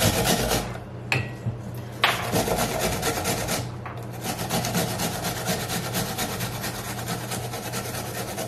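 Peeled apple rubbed back and forth over a round perforated metal hand grater, a rapid rasping scrape of many quick strokes. A metal knock at the start, a lull about a second in and a short break near four seconds.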